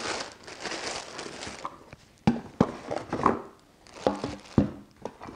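Clear plastic packaging bag crinkling as a new angle grinder is pulled out and unwrapped from it, followed by about five sharp knocks of the tool and packaging being handled against the table.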